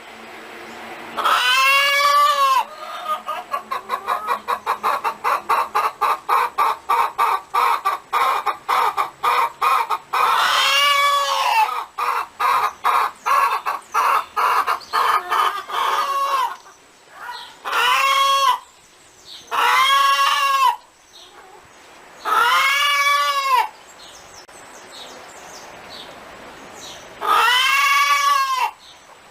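Hen cackling: runs of quick, evenly spaced clucks, about three a second, broken by six loud, drawn-out squawks that rise and fall in pitch.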